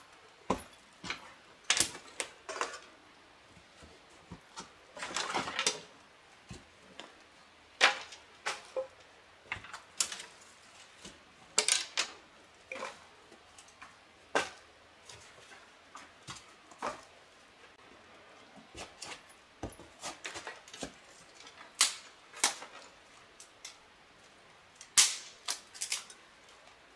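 Footsteps scrambling up a boulder slope littered with dry leaves and sticks: irregular crunching steps and sharp knocks of boots on stone, with a longer crunch about five seconds in.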